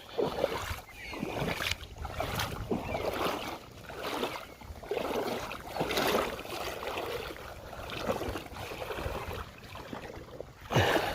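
Feet and legs wading through shallow river water, a slosh and splash with each step, coming in repeated swells about once a second.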